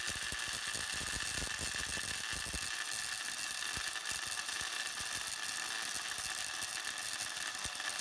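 Cosmos electric blender running steadily, chopping raw peanuts in a small cup, with a constant motor whine. Whole nuts rattle and knock against the jar densely for the first three seconds or so, and the knocking thins out as the nuts are broken into coarse pieces.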